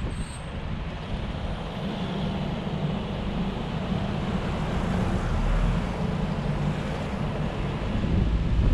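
Steady road and wind noise of a car driving on a motorway, a low rumble with hiss above it, getting a little louder near the end.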